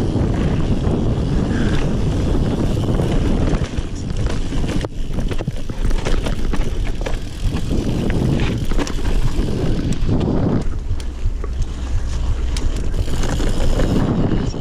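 Giant Trance Advanced 1 mountain bike ridden along a dirt and rock trail: steady wind rush on the GoPro microphone and tyre noise, with frequent rattles and knocks from the bike over the bumps.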